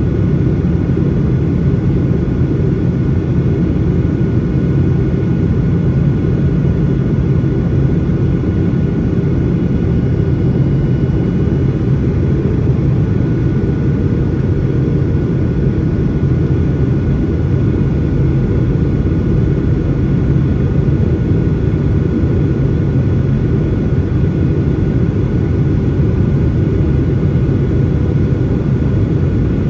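Cabin noise inside a Boeing 737-800 on approach, heard from a window seat over the wing: a steady low rumble of airflow and the CFM56 jet engines, with a faint steady whine above it.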